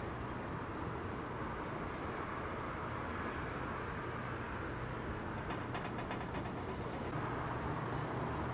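Steady low hum with a quick run of small sharp clicks about halfway through, from metal pen hardware being handled and fitted together.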